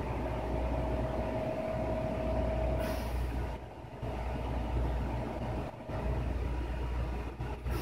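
Steady low mechanical rumble with a faint steady hum that fades about three seconds in, dipping briefly a few times.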